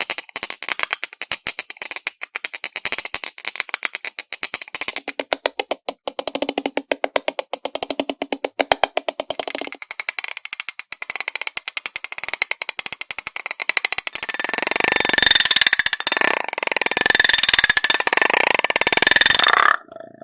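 Rapid tapping on glass dishes: many light, hard clicks a second with a faint glassy ring. About two-thirds of the way in it turns denser and nearly continuous, then stops suddenly near the end.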